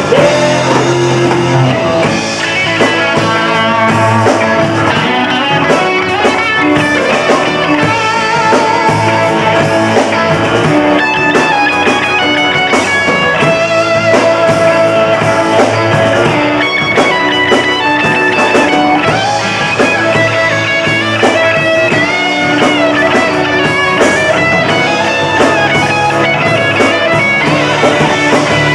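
Live rock band playing an instrumental passage: an electric guitar plays lead lines with bent, wavering notes over bass guitar and drum kit.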